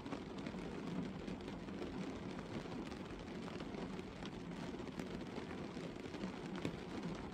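Light rain falling on a car's roof, bonnet and windscreen, heard from inside the car: a steady low hiss scattered with sharp ticks of single drops.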